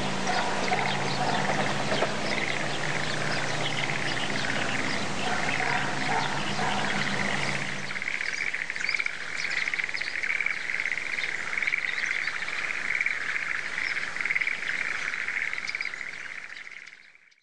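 A chorus of frogs calling together, a dense pulsing chirring that goes on throughout and comes to the fore after about eight seconds. Under it, a low steady hum stops suddenly about eight seconds in, and everything fades out near the end.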